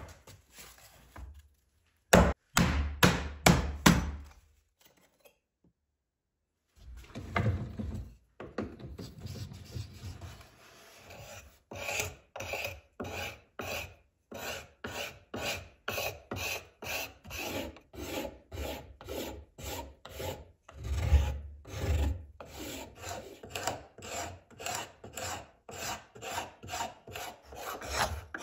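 Glass shard scraping a wooden hammer handle, in repeated strokes about two a second that shave off fine curls of wood to fine-tune the handle's shape. The strokes stop briefly about six seconds in, then carry on steadily.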